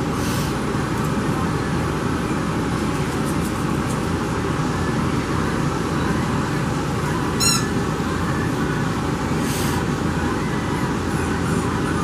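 A steady rushing background noise with no change in level. About halfway through comes one short, high squeak.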